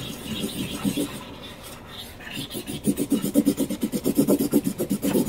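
Felt-tip marker scribbling on paper on a tabletop: rapid back-and-forth rasping strokes as a coloured area is filled in, growing louder and quicker from about three seconds in.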